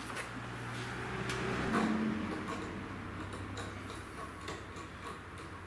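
Faint clicks and taps of the rear fender being handled and fitted back onto the e-chopper, over a low steady hum.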